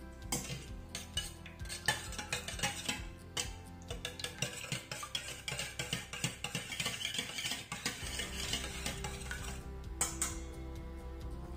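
Wire whisk beating eggs in a stainless steel bowl: rapid metal clinking and scraping against the bowl, busiest in the middle of the stretch. Background music plays throughout.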